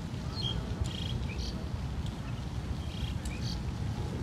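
Small birds chirping, short high calls several times, over a steady low rumble.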